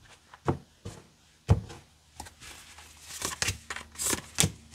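Tarot cards being handled and laid out on a wooden table: cards slid off the deck and set down with short taps, and a papery rustle of cards rubbing together about three to four seconds in.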